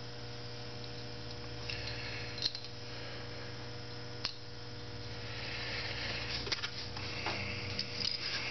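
Steady electrical hum, with a few light clicks and taps as small brass carburetor jets are handled and a screwdriver is fitted into the carburetor body, the taps coming more often near the end.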